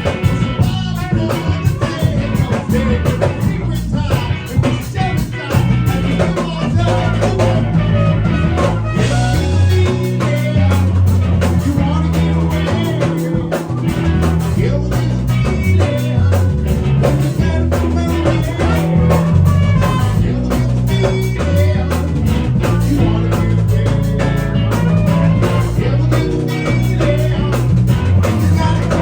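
A band playing rock music: guitar, a stepping bass line and a drum kit keeping a steady beat.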